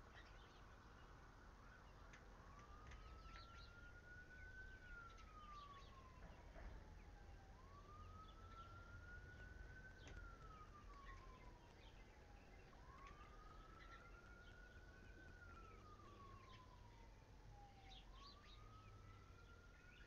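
A faint siren wailing, its pitch rising and then falling slowly over and over, about every five seconds.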